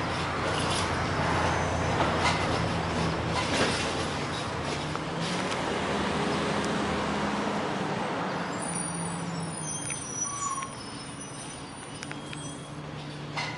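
CCC LET2 garbage truck with a Heil Rapid Rail side-loader body, its engine running steadily, with a few sharp knocks in the first few seconds. The sound drops a little in level about ten and a half seconds in.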